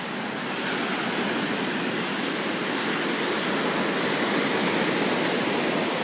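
Ocean surf washing onto the shore, a steady rush that swells slightly about a second in.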